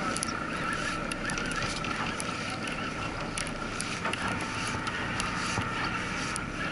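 Steady hum and wash of a boat at sea: a constant whine over an even rushing noise, with scattered faint clicks.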